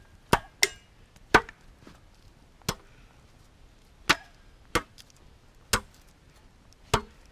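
Heavy long handsaw swung as a chopper, its blade striking a wooden log in sharp, separate chops, about eight at an uneven pace. The log's edges are being hewn into shavings.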